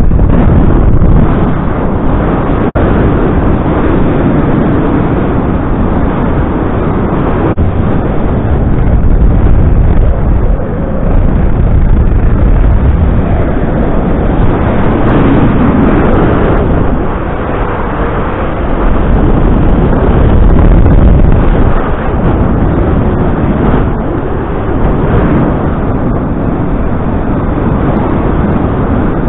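Airflow buffeting the microphone of a paraglider pilot in flight: a loud, continuous low rumble of wind noise that swells and eases every few seconds.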